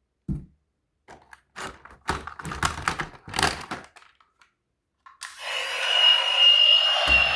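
Plastic toy vehicles being handled: a thump, then a few seconds of quick clattering and knocking. About five seconds in, a steady whirring noise with a slowly falling whistle starts up and keeps going.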